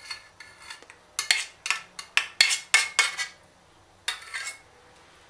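Kitchen utensil scraping and knocking against a pot, emptying out the last of the strawberry sauce: a quick run of short scrapes and clinks from about a second in to past three seconds, then one more a little later.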